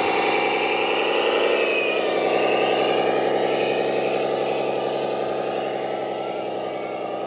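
Radio-controlled model truck running: a steady engine-like drone with a fast pulse, overlaid by a thin motor and gear whine that glides up and down, easing off slightly near the end.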